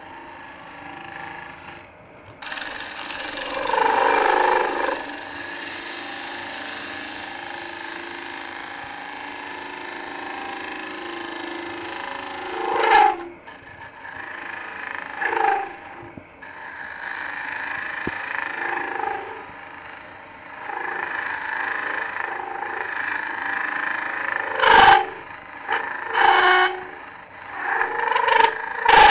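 Robert Sorby ring tool cutting into the end grain of a green-wood bowl spinning on a lathe: a steady shearing hiss over the lathe's running hum as the bowl wall is thinned. There are several louder, sharper surges of cutting, most of them in the last few seconds.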